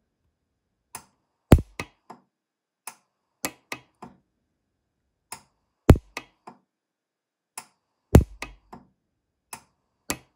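Orion 200i pulse-arc welder firing tack welds around a sterling silver earring post, each pulse a sharp snap. Three loud snaps come a few seconds apart among about a dozen fainter ticks.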